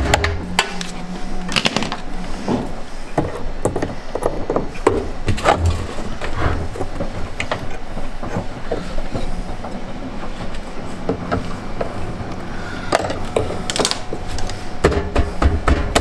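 Irregular clicking, knocking and scraping of tools worked against a washing machine heating element and its plastic tub housing, as the element's stuck rubber seal is pried at.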